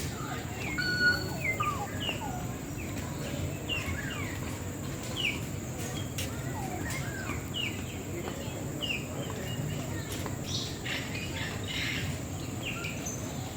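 Birds chirping: many short, quick chirps and whistled notes over steady background noise.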